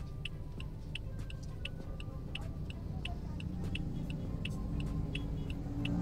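Steady low hum of a car's cabin with a regular light ticking, about three ticks a second.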